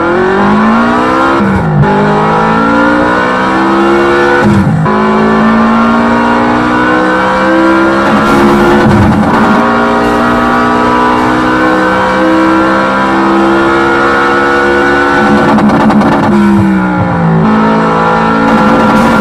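RC short course truck's motor and drivetrain running hard, heard from on board, its pitch repeatedly rising and falling with the throttle. A few brief crunching knocks fall in the middle.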